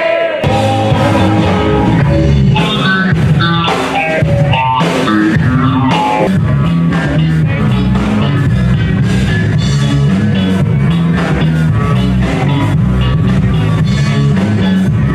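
Rock music with guitar and drums at a steady beat.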